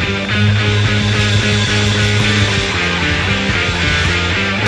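Progressive blues-rock band recording from 1969, with long, sustained low notes under a dense band sound and regular drum strokes.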